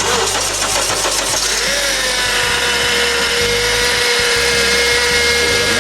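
Honda Accord engine starting and running, with a whine from the newly fitted power steering pump that rises briefly about a second and a half in, then holds steady. The owner takes the whine for low fluid, with foam and air still in the power steering system.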